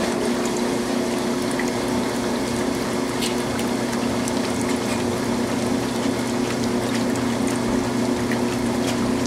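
1985 Kenmore 60 Series top-loading washer running with water flowing in the tub, over a steady electrical hum.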